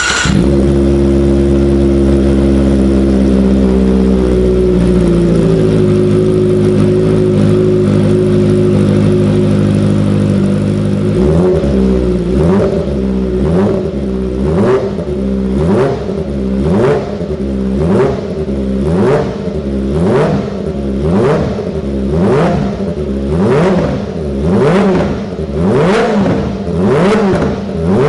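Kawasaki Ninja ZX-25R's 250 cc inline four, just started and running at a fast warm-up idle that settles to a lower idle about five seconds in. From about eleven seconds in, the throttle is blipped roughly once a second, each rev rising and falling quickly.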